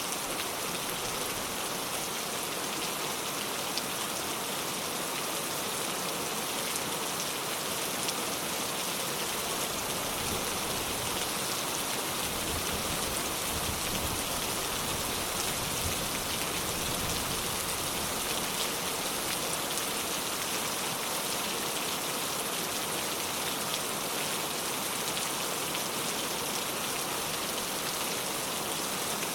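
Steady rain falling, with a low rumble of distant thunder swelling in the middle stretch and then fading.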